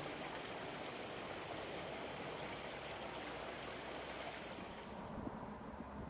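River water flowing, a steady even rushing hiss; the higher part of the hiss drops away about five seconds in.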